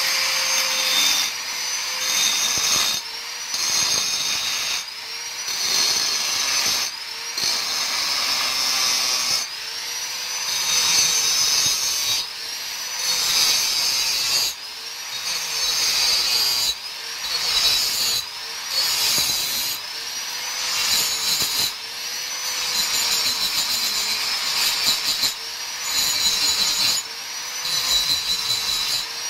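Handheld electric angle grinder grinding a steel exhaust piece. Its high whine sags in pitch each time the disc bites into the metal and recovers as it eases off, about every two seconds.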